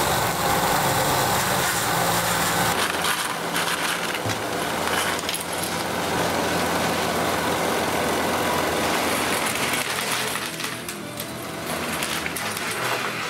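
Background music over the clatter of a plastic-brick RC truck on a running treadmill, with loose bricks clinking and rattling as it hits obstacles.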